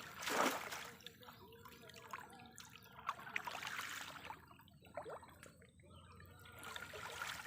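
A short splash of water about half a second in, then scattered drips and trickling of water.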